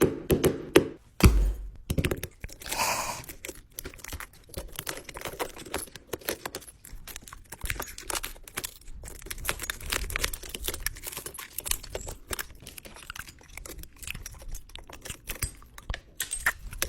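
Irregular crunching and crackling made of many small clicks and snaps, with a heavy thump about a second in.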